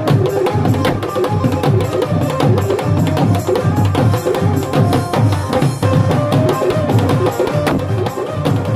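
Live Indian devotional folk music: a dholak beating a fast, driving rhythm under a sustained keyboard melody, loud and amplified through PA speakers.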